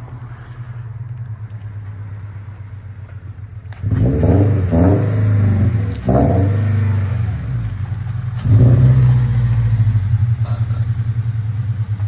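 2022 Toyota GR86's 2.4-litre flat-four idling through catless Tomei unequal-length headers and a Remark muffler delete, then revved in several quick blips from about four seconds in, with a longer rev a little past halfway that settles back toward idle.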